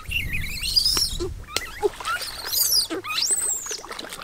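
High squeaky animal calls that glide up and down in pitch, several in a row, over light splashing of water.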